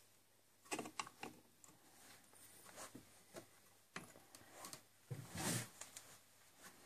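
Faint clicks and light metal knocks as a large ball bearing and a metal flanged part are fitted by hand into a lathe headstock housing, with a brief scraping rustle about five seconds in.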